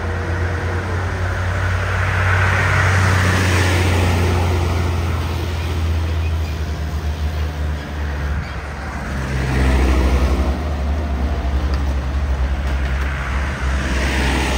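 Heavy diesel trucks climbing a steep grade: a steady low engine drone with passing tyre and road noise, swelling to a louder throbbing rumble about ten seconds in as a truck passes close by.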